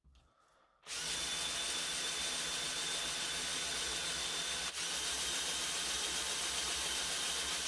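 Electric motors of a Mould King 13144 Tatra T813 brick-built Technic chassis running steadily, spinning the drivetrain gears and axles on one side. The sound starts about a second in. The gears run smoothly with no clicking or cracking, a sign that they mesh cleanly.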